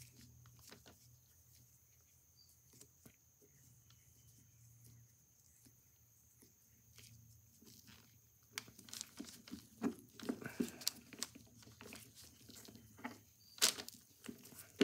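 A windshield wiper puller being worked against a gear pressed onto a phonograph spring-barrel shaft. After several seconds of near quiet come irregular small metal clicks and handling scrapes, with a sharper knock near the end.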